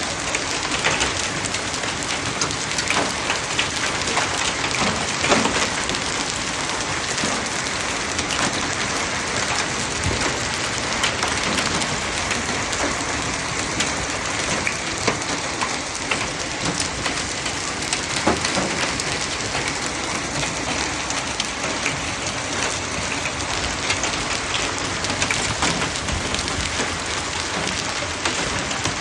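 Hail falling steadily, a dense patter of ice pellets striking surfaces with a few sharper, louder hits.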